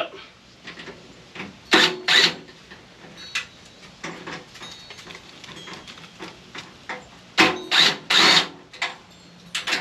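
Cordless drill or driver backing screws out of a microwave's sheet-metal casing in short bursts: two about two seconds in, and a cluster near the end.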